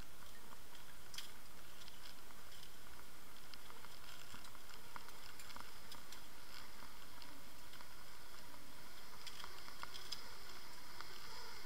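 Steady hiss of water moving past an underwater camera housing as it is towed through the water on a fishing line, with scattered faint clicks and ticks.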